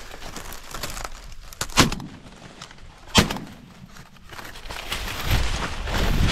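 Two shots from a Franchi Affinity One semi-automatic shotgun, about a second and a half apart, each with a short echo. Near the end comes a building rustle, as of dry corn leaves.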